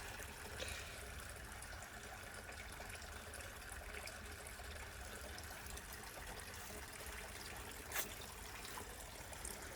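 Small garden-pond waterfall trickling steadily, its water lifted by a pump and running down into the pond; a single faint tick about eight seconds in.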